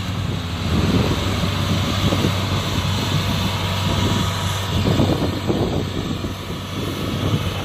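Old Kubota DC60 rice combine harvester's diesel engine running steadily under load, a continuous drone with the rattle of the machine working.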